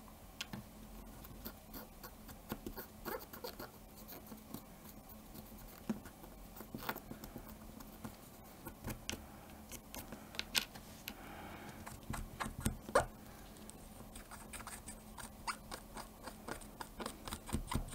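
Cotton swab scrubbing and scraping a small plastic camera part, with irregular little clicks and scratches as the part is handled on a cutting mat.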